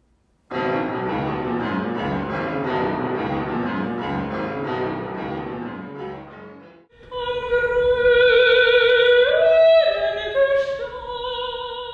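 Grand piano played, many notes in quick succession for about six seconds, fading out. Then a woman sings in classical operatic style, holding long notes that step up in pitch and back down.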